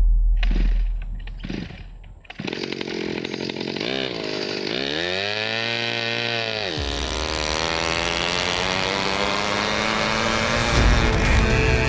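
Small gasoline engine of a mini sit-down scooter: a loud low rumble fades over the first two seconds, then the engine catches about two and a half seconds in, is revved up and back down once, and runs steadily, its pitch slowly climbing and getting louder near the end as the scooter rides off.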